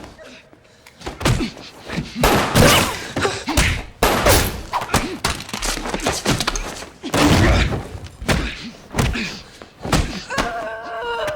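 A rapid string of heavy thuds, slams and knocks from film action sound effects, with loud noisy bursts between them. A wavering voice comes in near the end.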